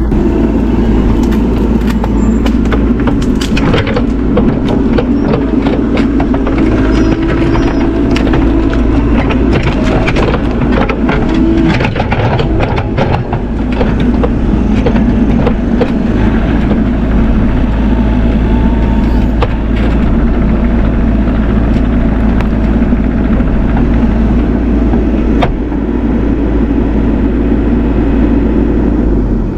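Bobcat E42 mini excavator's diesel engine running steadily under load as it works, with many sharp cracks and crunches scattered through.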